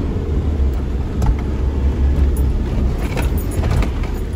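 A car's engine and tyres rumbling low and steady in the cabin while driving on a bumpy dirt trail. Loose items rattle and click a few times about three seconds in.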